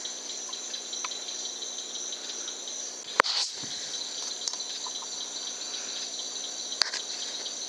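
Steady, high-pitched night insect chorus of crickets. A sharp click about three seconds in, and a fainter one near the end.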